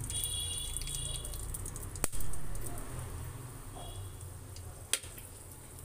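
Whole spices (bay leaves, cloves, cardamom) crackling in oil heating in an aluminium pressure cooker, with a few sharp pops: a loud one about two seconds in and another near five seconds, over a low steady rumble.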